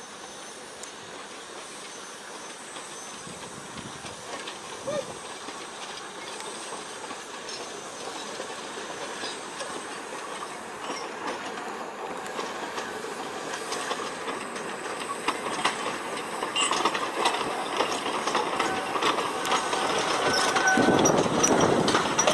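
Small steam locomotive and its carriages approaching, growing steadily louder, with a steam hiss. In the second half, wheels click over the rail joints.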